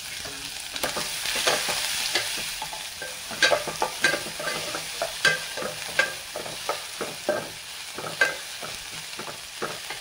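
Pounded spice paste frying in hot oil in a pan, a steady sizzle, with a spatula stirring and knocking against the pan in irregular clicks, a few of them louder.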